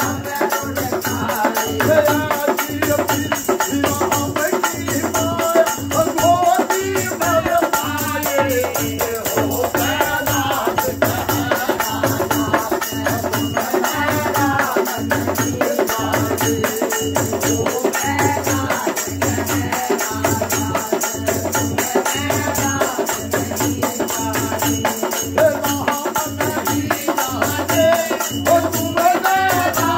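Live dehati bhajan: a man's singing voice over a steady dholak beat, with the constant jingle of chimtas (metal tongs fitted with jingles) shaken in rhythm.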